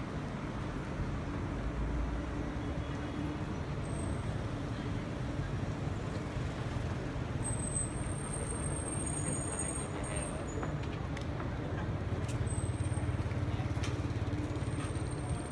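Steady city street traffic: cars passing with a low rumble. A thin high tone comes and goes several times, loudest about halfway through.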